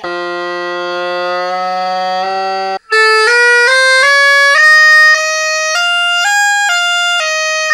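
Highland bagpipes bought cheap on eBay: the drones hold one steady low tone under the chanter, and the chanter changes note twice. Cut off at about three seconds, then the pipe chanter plays alone without drones, running through single notes that step up in pitch about twice a second and then move back down.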